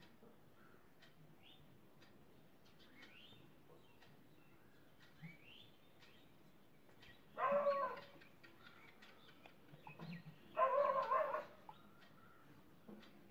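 Two loud, drawn-out animal calls, the first a little past the middle and the second about three seconds later, over faint bird chirps.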